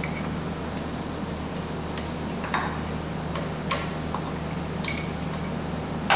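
Sharp metallic clinks of hand tools on fittings as coolant lines are worked off a turbocharger: four clear ones, a little over a second apart, starting about halfway through, over a steady low hum.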